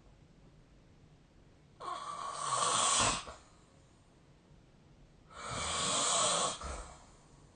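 A sleeping person snoring: two breathy snores about three and a half seconds apart. Each lasts about a second and a half and grows louder before cutting off.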